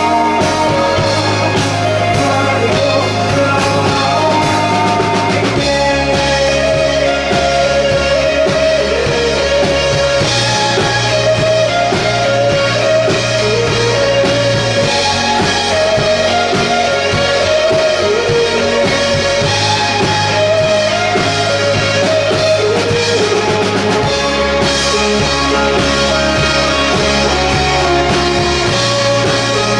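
Rock band playing a song live: electric guitar, bass and drum kit, the bass moving to a new held note every four to five seconds under a wavering melody line.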